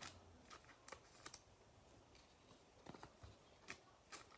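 Faint, scattered clicks and taps of glossy trading cards being handled and sorted by hand, against near silence.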